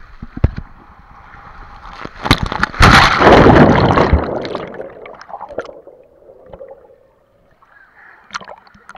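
Water slide run ending in a splashdown: rushing water, then a loud splash into the pool about two to three seconds in, followed by muffled gurgling from under the surface that fades to gentle sloshing and a few small splashes near the end.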